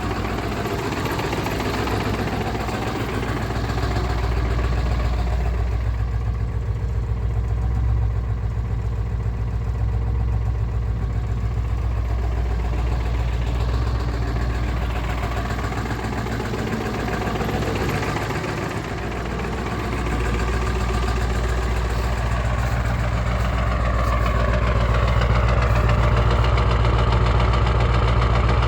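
Ford 7.3 L Power Stroke turbo-diesel V8 idling just after a cold start at 18°F, with a steady, rapid diesel knock. The owner wonders whether it is misfiring from bad injectors; the engine knocks and is noisy like this on every cold start and quiets down once warm.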